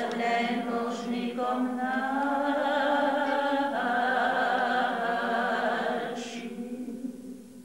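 A small group of Carmelite nuns singing together without accompaniment, in long held notes; the phrase fades out near the end.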